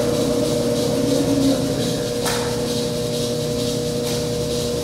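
Ransome 200P welding positioner's electric rotation drive running, a steady motor and gearbox hum as the table turns slowly, with a single click about two seconds in.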